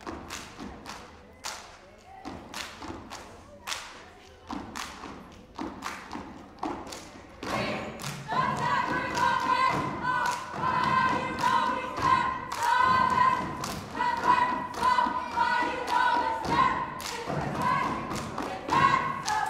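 Step team stomping and clapping in a steady rhythm, about two sharp hits a second. About eight seconds in, voices join, chanting in unison over the beat, and it gets louder.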